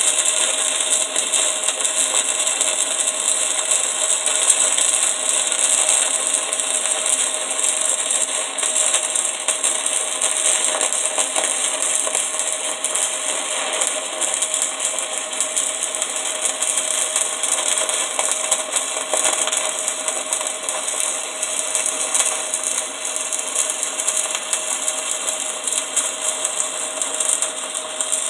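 Stick-welding arc crackling steadily as a 3/32-inch 7018 low-hydrogen rod burns at about 70–75 amps.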